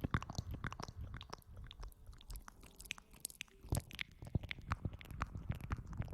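Close-miked ASMR rustling and crackling: a dense, irregular run of small clicks and crackles, with a few louder snaps.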